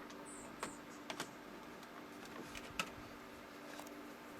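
Light plastic clicks and taps as a black ink cartridge is handled and pushed into a Lexmark OfficeEdge inkjet printer's cartridge slot, a few separate clicks over a steady low hum.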